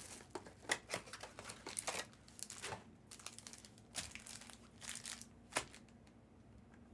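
Trading card pack wrappers being torn open and crinkled by hand: a run of sharp crackles and rustles that dies down near the end.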